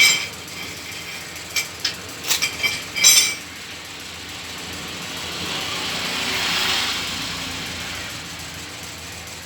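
Metal tools and parts clanking and clinking, a sharp clank and then a quick cluster of ringing metallic knocks. Then a motor vehicle engine swells up and fades away as it passes.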